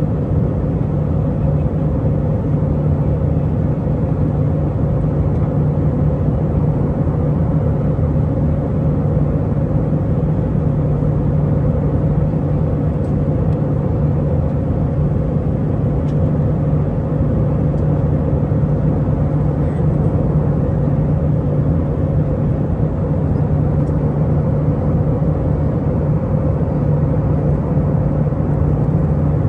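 Steady cabin drone of an Airbus A319 in flight, heard from inside the cabin: its IAE V2500 turbofan engines and the airflow past the fuselage, with a low hum and a fainter higher hum held constant.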